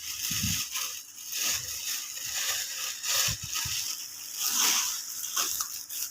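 Plastic packaging crinkling and crackling in irregular bursts as it is handled and torn open, with a few soft low thumps.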